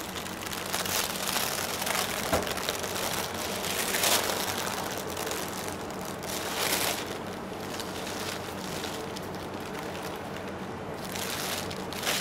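Baking parchment rustling and crinkling as it is lifted and pulled to roll a cream-filled meringue sheet into a roulade, in soft irregular swells.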